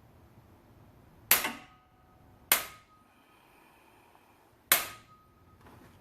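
Three sharp metallic snaps with a short ring, about a second in, at two and a half seconds and near five seconds, from tightening the cylinder head bolts on a Toyota 2ZR-FE engine with a wrench.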